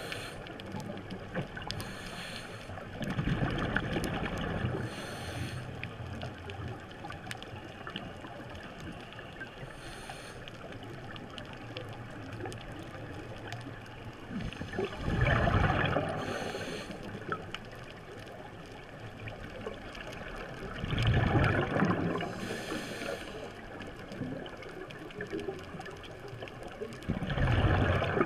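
Scuba regulator breathing underwater: four loud rushes of exhaled bubbles at uneven intervals, about two seconds each, with short high hisses between them over a steady underwater hiss.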